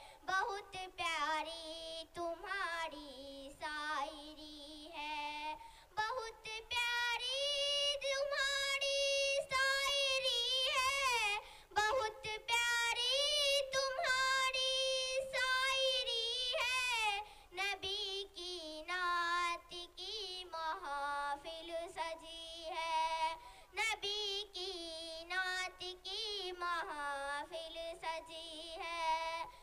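A young girl singing a naat, an Urdu devotional poem in praise of the Prophet, solo and unaccompanied into a microphone: one high melody with long held, wavering notes and short pauses for breath.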